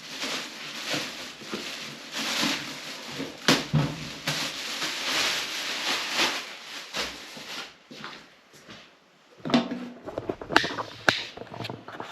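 Packaging being handled as a PC case is unpacked: a continuous rustling and scraping for most of the time, then a quieter moment followed by several sharp clicks and knocks near the end.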